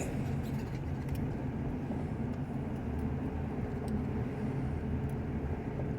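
Steady road and engine noise of a moving car, heard inside the cabin: an even low rumble with hiss.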